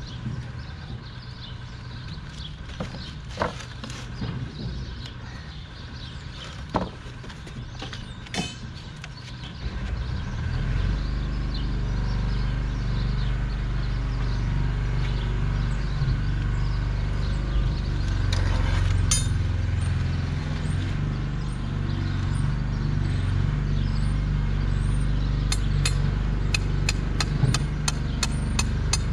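A few sharp metallic clinks over quiet outdoor background. From about ten seconds in, a loud, low, steady rumble like an engine running takes over. Rapid light ticks come in near the end.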